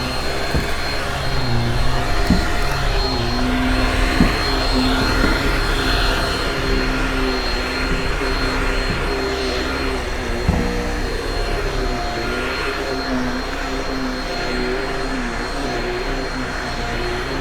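Shark Rocket stick vacuum running steadily while vacuuming carpet, its motor pitch wavering slightly as it works, with a few light knocks.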